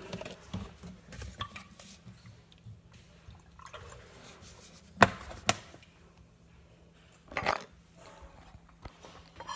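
Kitchen counter handling sounds while a bottle is tipped over a coffee mug: a sharp knock about five seconds in, a lighter one just after, and a brief rustling clatter about two seconds later, over a faint steady hum.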